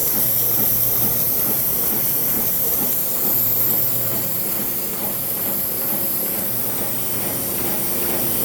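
Eastwood QST scroll air compressor running with a steady hiss and a low hum that comes and goes. The owner suspects a bad bearing.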